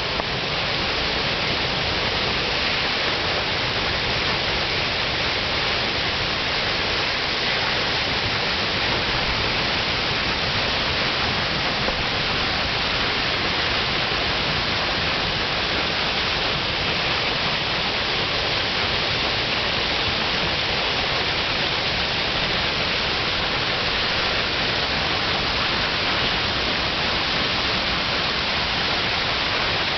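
Man-made waterfall: falling water rushing in a steady, unbroken roar of splash noise.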